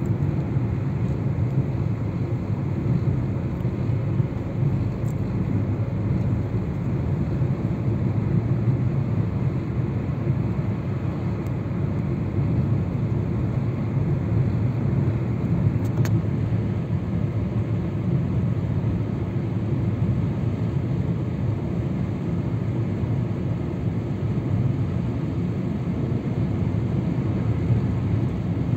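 Steady low rumble of a car's tyres and engine, heard inside the cabin as it drives at an even speed through a long road tunnel.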